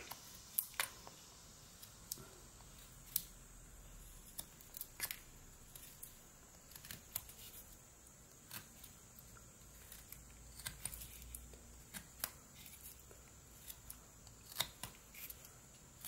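Pocket knife blade cutting Eastern White Pine: faint, short slicing scrapes and small clicks of chips coming off, irregular, roughly one a second.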